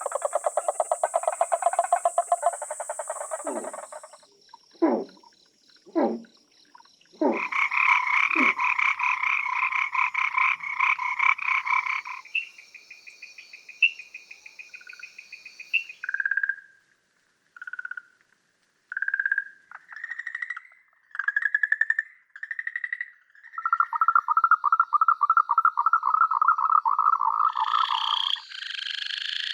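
Calls of several frog species of the Amami–Okinawa islands, one recording after another, changing abruptly every few seconds. In turn: a pulsed croaking, five low falling notes, a dense pulsed chorus, a high steady tone with clicks, short separate notes and a steady pulsed trill.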